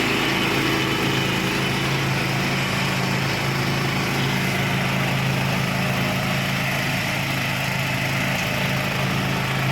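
Ride-on zero-turn lawn mower's engine running steadily at a constant pitch.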